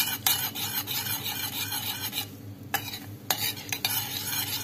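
Butter melting and sizzling in a small pot over low heat while it is stirred, the utensil scraping the pot in quick repeated strokes. There is a brief pause a little past halfway.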